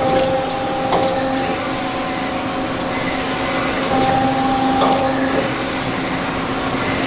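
Steady mechanical hum of a powered-up Daewoo Lynx 210 CNC turning center, with a constant low tone running through it and a few light knocks about a second in and again around four to five seconds in.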